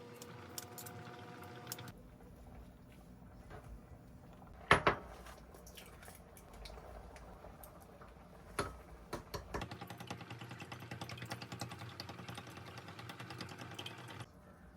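Home kitchen sounds from cooking: two sharp knocks of a utensil or dish, then a stretch of rapid clicking of utensils against a dish that cuts off suddenly near the end.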